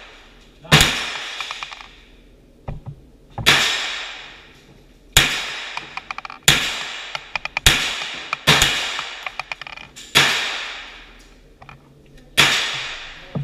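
SIG 516 rifle converted to .22 firing nine single semi-automatic shots, spaced unevenly about one to three seconds apart. Each shot trails off in a long echo down the enclosed tunnel range. Fainter clicks are heard between some of the shots.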